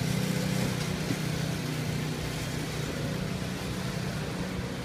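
Go-kart engine running at a fairly steady pitch as the kart drives around the track.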